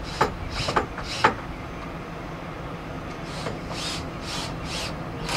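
Bosch cordless drill driving machine screws into metal T-nuts, run in a series of short bursts.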